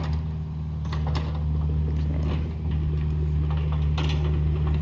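An engine idling steadily with an even low hum, with a few light clicks and knocks over it.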